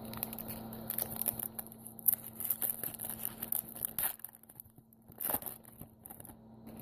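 Trading card pack wrapper crinkling and tearing as it is opened: a run of small crackles for about four seconds, then a short burst of crinkling a little after five seconds.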